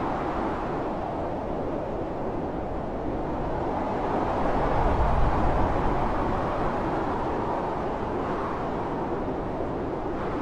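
Blizzard wind blowing hard, a continuous rushing noise that swells with a deep rumble about halfway through, then settles.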